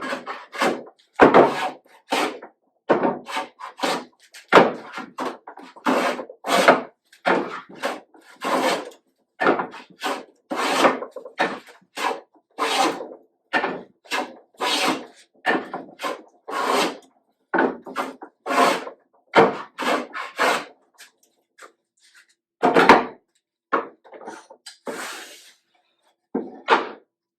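Hand plane shaving a board face in quick, repeated strokes, about one a second, while flattening the board. The strokes thin out to a few scattered passes near the end.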